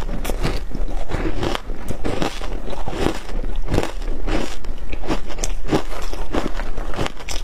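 Crunching bites and chewing of frozen shaved ice coated in matcha powder: a continuous, irregular run of crisp crunches, several a second.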